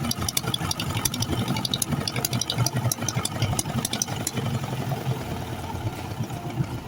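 A boat engine running steadily with a low rumble and a fast clatter of clicks and rattles over it. The clicking thins out after about four seconds.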